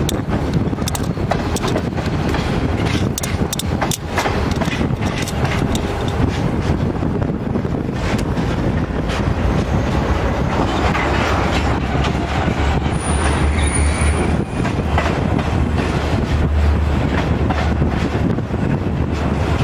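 Empty centerbeam flatcars of a CN freight train rolling past at steady speed: a continuous rumble with wheels clicking over the rail joints, and a brief high squeal about thirteen seconds in.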